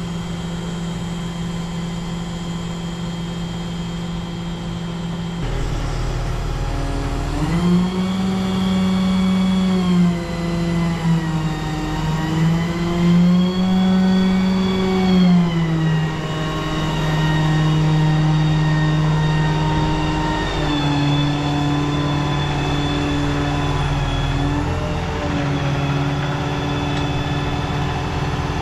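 115-ton mobile crane's diesel engine running, steady at first. About five seconds in its note changes, then the revs rise and fall several times before holding at a higher, steady speed.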